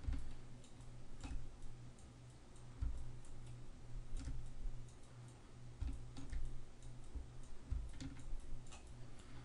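Faint, irregular computer mouse clicks, scattered a few per second and unevenly spaced, over a steady low electrical hum.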